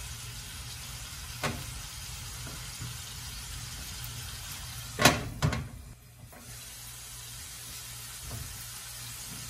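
Spice paste with a little water sizzling in a frying pan, a steady hiss. A click about one and a half seconds in and two loud knocks about five seconds in.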